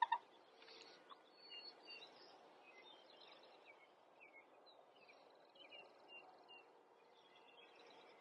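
Faint songbirds chirping and calling over a quiet woodland background, with two short sharp notes right at the start.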